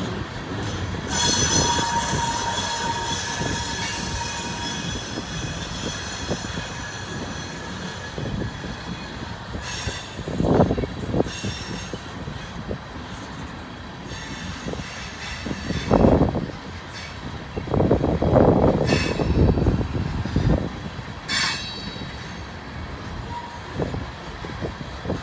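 Freight train tank cars rolling past at close range, steel wheels on rail making a steady rumble. A high steady wheel squeal sounds for a few seconds near the start. Heavy thumps come at several points later on.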